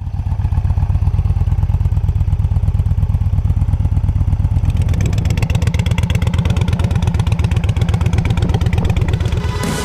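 Yamaha Bolt's air-cooled V-twin running through its exhaust with a steady, pulsing beat. The sound grows harsher about halfway through.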